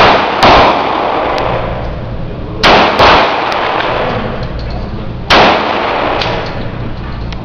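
.45 ACP 1911 pistol fired five times in an indoor range: two quick pairs of shots about half a second apart, then a single shot, each ringing off the walls.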